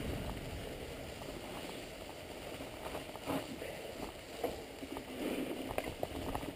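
Mountain bike riding down a rough forest trail: tyres rolling over dry leaves and stones, with scattered knocks and rattles from the bike.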